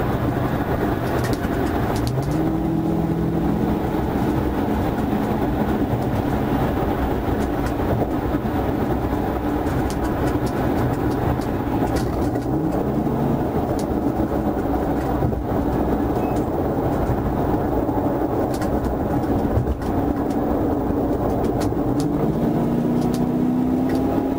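Patrol car's engine, tyres and wind heard from inside the cabin at highway speed. The engine pitch climbs three times, about two seconds in, near the middle and near the end, as the car accelerates.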